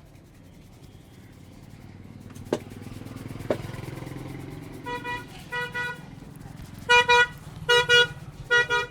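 A vehicle horn honks in a string of short toots from about halfway through, several in quick pairs, over the low rumble of passing traffic. Two sharp clicks come before the honking.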